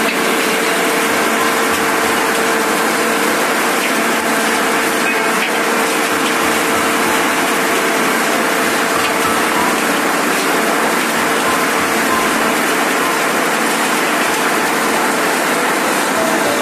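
Trommel screen washing plant running: a loud, steady mechanical din of the rotating drum, motors and tumbling gravel, with a faint steady hum underneath.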